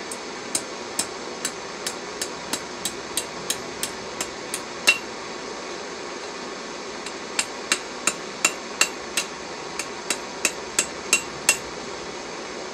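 Hammer striking a red-hot metal rod on a small anvil: two runs of sharp blows, about three a second, with a pause of about two seconds between them.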